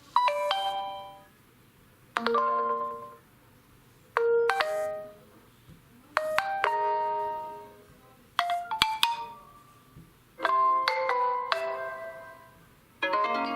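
OPPO A1K stock ringtone playing: a short melodic phrase of a few quickly decaying notes, repeating about every two seconds.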